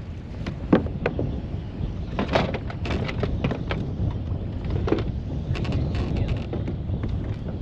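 Wind buffeting the microphone in a steady low rumble, with irregular knocks and slaps of choppy water against a fishing kayak's hull.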